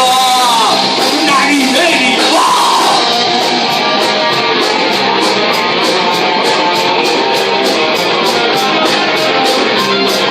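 Live rock band playing loudly: electric guitar with singing in the first few seconds, then a steady drum beat at about three or four hits a second.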